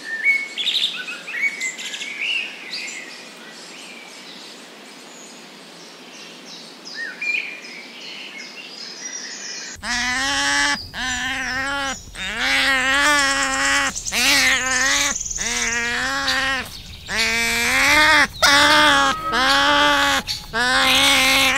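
Faint chirping for the first ten seconds. Then otters calling: a quick run of repeated loud whining squeals, each rising and falling in pitch, through to the end.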